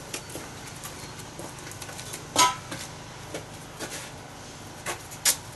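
Clatter of metal junk and other hard odds and ends being picked up and set down. There are scattered knocks and one loud metallic clank a little before halfway that rings briefly.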